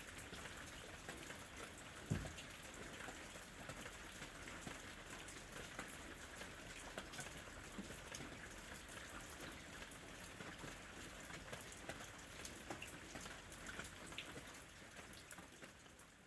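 Steady rain, with many individual drops striking a surface. A single low thump comes about two seconds in, and the sound fades out near the end.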